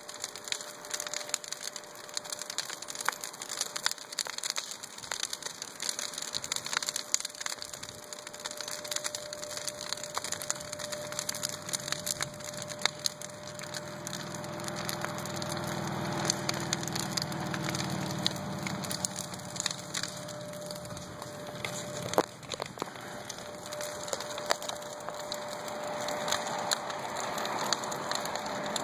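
Large bonfire of brush, branches and lumber crackling steadily with many sharp pops and snaps. A low rumble comes in for several seconds around the middle, and a rushing hiss builds toward the end.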